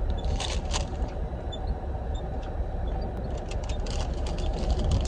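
Rustling and clicking of a paper receipt and snack packets being handled, in two short spells about half a second in and again near four seconds, over a steady low hum.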